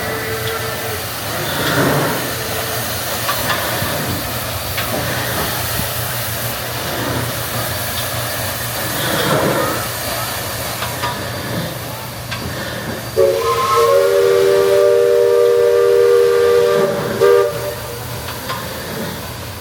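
A steam engine hissing steadily, with two louder gusts of steam. Near the end a multi-chime steam whistle sounds one chord for about four seconds, then cuts off.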